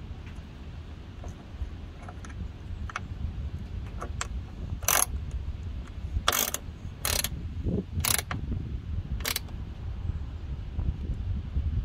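A 1/4-inch socket ratchet clicking in about five short bursts, each a fraction of a second, as a bolt is tightened.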